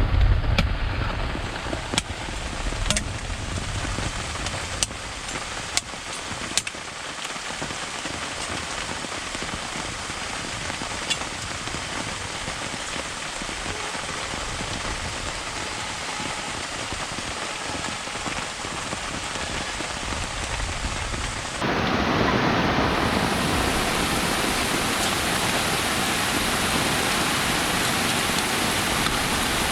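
Steady rain falling, with a few sharp drip clicks in the first several seconds. About two-thirds of the way through it becomes suddenly louder and fuller, heavier rain, and stays that way.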